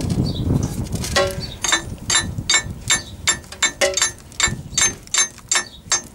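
Hammer blows on the steel steering cylinder of a KhTZ T-150K tractor, knocking its cover loose so the cylinder can be taken apart. From about a second in there are around fifteen sharp, ringing metallic strikes, roughly three a second.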